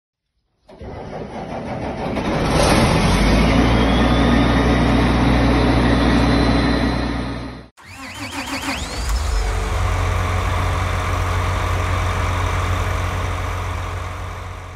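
Large tractor diesel engine starting up and building to a steady run, with a rising whine, before it cuts off abruptly about eight seconds in. A diesel engine then runs steadily again, with brief rising whines, and fades near the end.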